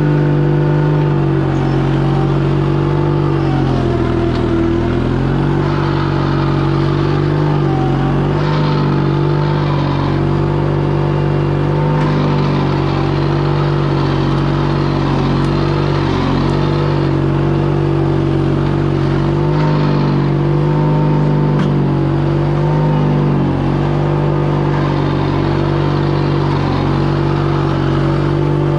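Case 1816 mini skid steer's engine running steadily, its pitch dipping briefly several times as the machine loads up digging and moving dirt, with a drive belt squalling on one side.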